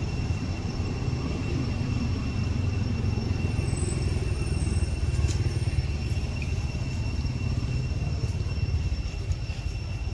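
Steady low outdoor rumble with a thin, steady high-pitched whine over it.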